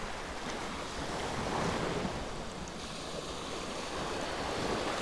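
Small sea waves washing around the shoreline, a steady wash of surf with some wind rumble on the microphone.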